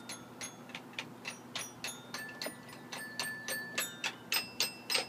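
Xylophone bars struck one after another with a mallet, about three or four notes a second at a fairly even pace. Some notes ring on briefly.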